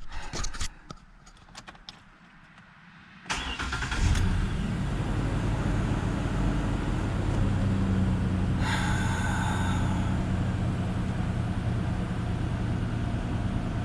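A few clicks and knocks, then a 2011 Ford Ranger's engine cranks and starts about three seconds in and settles into a steady idle.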